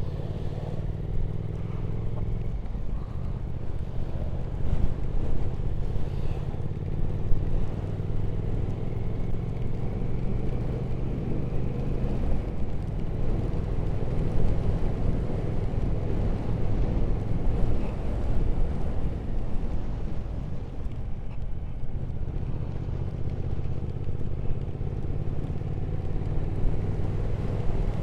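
Triumph Speed Twin 1200's parallel-twin engine running steadily while riding at road speed, under a steady haze of wind and road noise.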